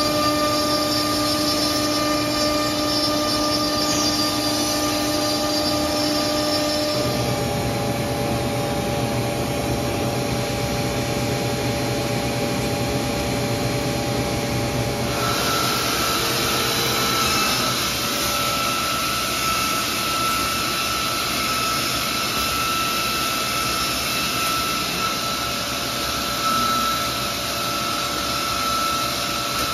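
Biesse Rover 322 CNC machining center running, a steady machine noise with a whine of motors whose pitch changes about 7 seconds in and again about 15 seconds in.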